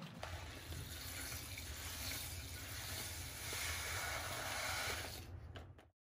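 Dry rice koji grains poured from a plastic bag into a plastic tub of soy sauce and sake: a steady pouring hiss that grows louder past the middle and cuts off suddenly near the end.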